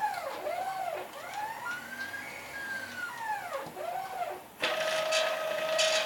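Stepper motors of a CNC router whining, their pitch rising and falling in repeated arcs as the axes speed up and slow down. About two-thirds of the way through, a steady tone sets in with bursts of hiss on top.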